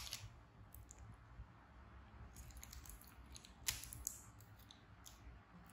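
Hands handling plastic packaging, a thin plastic film strip and a small plastic tub of cotton swabs: a sharp click right at the start, another a little past halfway, and a few faint ticks and crinkles between.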